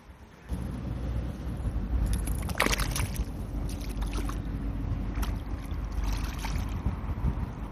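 A released nigoi (Japanese barbel) splashing in the shallows as it kicks away, with the sharpest splash about two and a half seconds in and smaller ones after. Wind rumbles on the microphone throughout.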